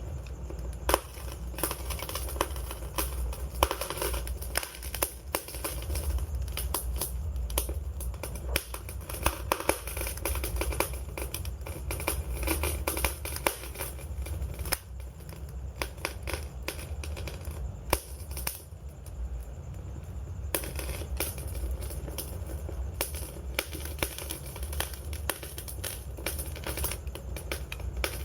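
Wood fire crackling, with frequent sharp pops and snaps over a low, steady rumble.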